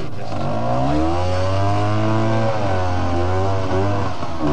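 Trials motorcycle engine revving up and down as it climbs a rocky section, the throttle opened and eased in long rises and falls of pitch, with a few quick blips near the end.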